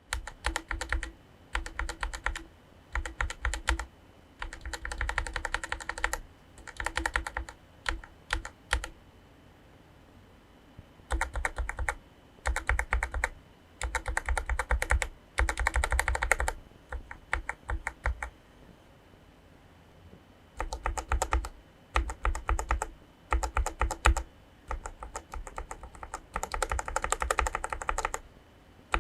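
Bursts of rapid keystrokes on keycapped Outemu mechanical switches: Outemu Red linear (45 g) switches first, then Outemu Brown tactile (55 g) from about 11 seconds in, then Outemu Purple tactile (62 g) from about 20 seconds in, with short pauses between the switch types.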